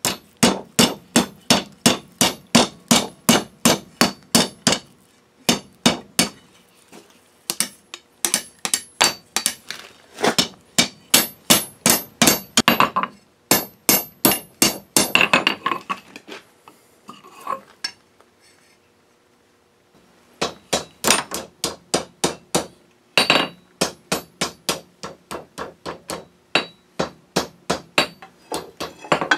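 Hand hammer striking red-hot steel on an anvil, about three blows a second in runs, as the end of the bar is curled into a scroll. The blows stop for about two seconds roughly two-thirds of the way through, then resume.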